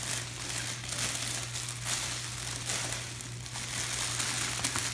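Shiny Christmas wrapping paper crinkling and rustling as a present is pulled open by hand, in uneven surges, over a steady low hum.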